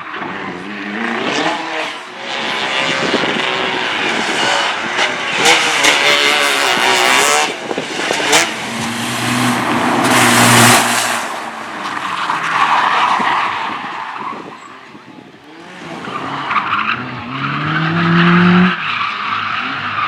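Slalom race cars driving hard on a tight course: engines revving up and down between the cones, with tyres squealing and skidding through the turns. Near the end an engine revs up in a rising note that breaks off abruptly.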